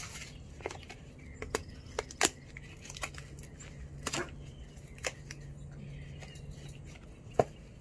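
Cardboard box of powdered bleach being torn open by hand: a string of short ripping and crackling snaps of paperboard, the loudest one near the end.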